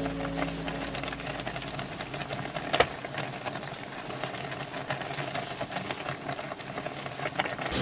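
Hot-pot simmering on a portable cassette gas stove: a steady hiss with small crackles and one sharp click a little under three seconds in. Background music fades out at the start.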